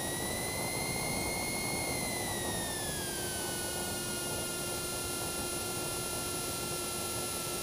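Cessna 172's piston engine and propeller running at low power on final approach, a steady drone heard in the cockpit. Its pitch rises slightly, then drops a few seconds in and holds lower as power eases back.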